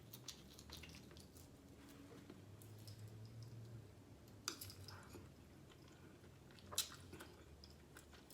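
Quiet chewing of lobster meat, with two sharp clicks about four and a half and seven seconds in.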